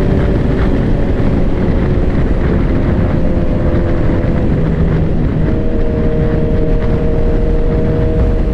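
Sport bike engine running at a steady road speed, with wind rush over the microphone; the engine note shifts about five seconds in.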